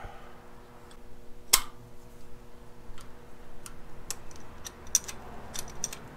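Sharp, irregular metal clicks and taps of a wrench working on engine fittings, with one loud click about a second and a half in.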